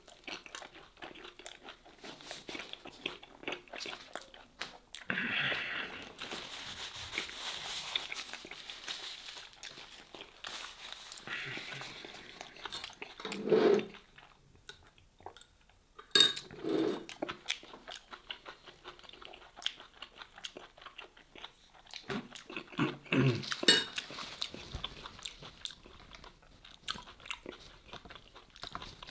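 Close-miked chewing of bread-wrapped smoked beef short rib: steady wet mouth clicks and crunching, with a few short, louder throat and mouth sounds at intervals.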